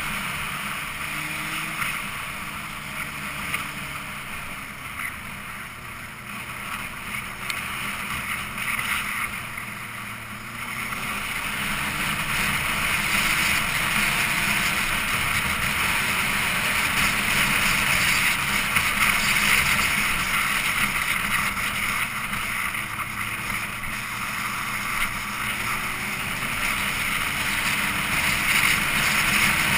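Motorcycle under way recorded by an onboard camera: wind rushing over the microphone, with the engine underneath, its pitch rising and falling with the throttle. The rush grows louder about a third of the way through.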